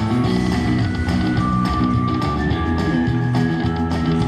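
Buffalo Cash slot machine playing its electronic game music: layered held tones over a low, shifting melody.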